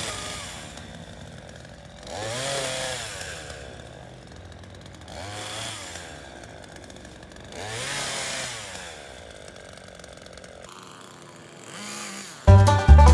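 Craftsman S180 42cc two-stroke chainsaw revving up and dropping back about every two and a half seconds as it cuts into a fallen branch, idling between the bursts. Loud banjo music comes in just before the end.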